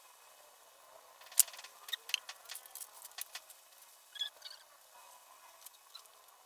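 Sharp clicks and light taps of makeup tools and containers being handled, the loudest about a second and a half in, with a couple of short high squeaks around four seconds in.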